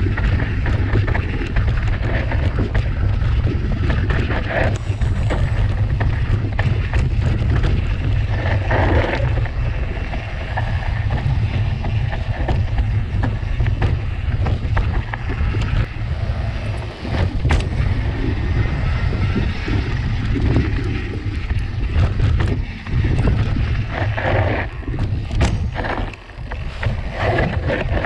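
Mountain bike ridden down a rough trail: wind rumbling on the bike-mounted camera's microphone, with a noisy haze of tyre noise and scattered clicks and rattles from the bike over the ground. The rumble drops away briefly twice near the end.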